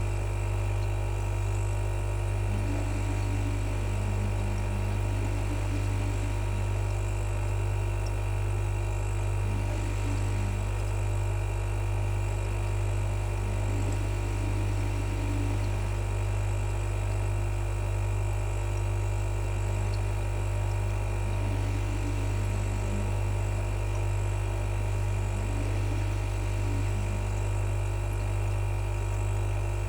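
Refrigerator compressor running with a steady low buzz.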